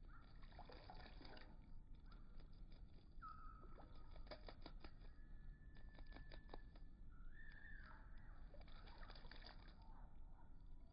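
Small bird bathing in a shallow birdbath: faint, rapid splashing and flicking of water in three bouts, near the start, in the middle and near the end.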